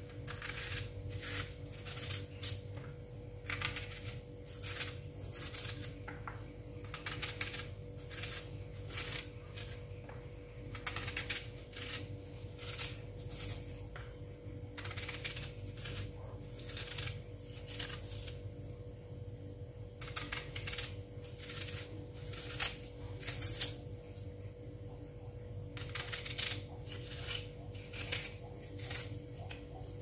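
A raw red onion being sliced into rings by hand, each cut a crisp click that comes irregularly, one to three a second, as the slices drop onto carrot sticks in a clay tagine. A steady faint hum runs underneath.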